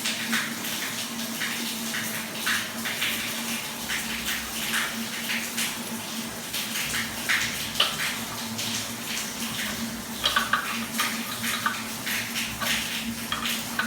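Irregular scraping and clicking handling sounds as a non-return valve is threaded onto the water heater's cold-water inlet, over a steady hiss and low hum.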